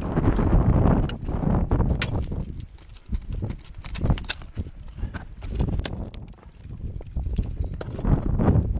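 Ice axe picks striking waterfall ice, a string of sharp, irregular knocks a few per second, over loud rustling close to the microphone.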